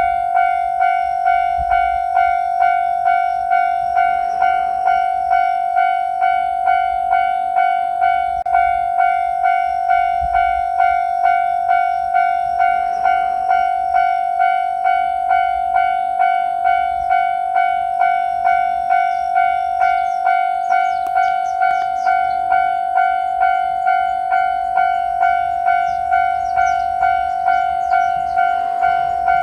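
Japanese railway level-crossing warning bell (the electronic "kan-kan" alarm) ringing steadily. It makes a clanging tone repeated about one and a half times a second, signalling that a train is approaching.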